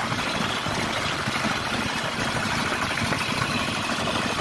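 A hand tractor's single-cylinder diesel engine running steadily as the tractor pulls its implement through a flooded rice paddy.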